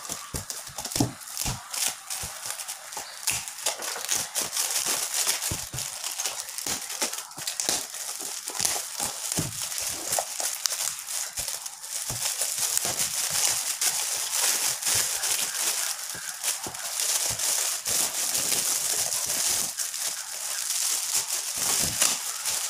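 Metallic foil gift wrap crinkling and tearing as it is pulled off a box by hand, an irregular crackle of many small clicks.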